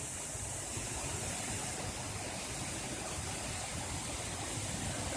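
Waterfall in full flow: a steady, unbroken rush of falling water.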